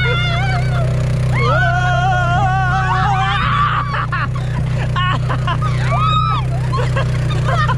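A quad ATV's engine runs steadily while several riders shriek and laugh. A long, wavering high-pitched scream comes in the first half, and shorter yelps and laughs follow.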